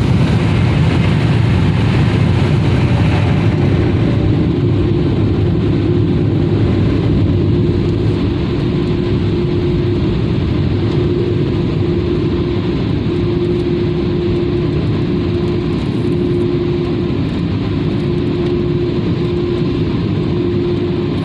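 Ryko Softgloss Maxx car-wash dryer blowers running: a loud, steady rush of air with a low hum. It is heard from inside the pickup's cab. A steady tone sounds in short on-and-off stretches through the second half.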